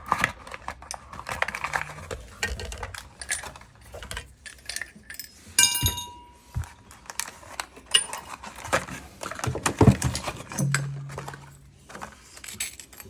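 Metal hand tools and plumbing fittings being handled, clinking and rattling in irregular short knocks, with one clear ringing metal clink about six seconds in.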